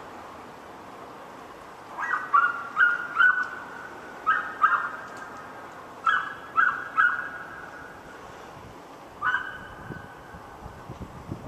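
A dog barking in quick clusters: about ten barks, in groups of two to four with pauses between groups, the last a single bark near the end.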